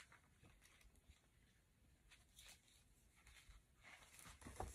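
Near silence with faint rustling and soft clicks of a paperback book being handled and its pages turned, a little louder near the end.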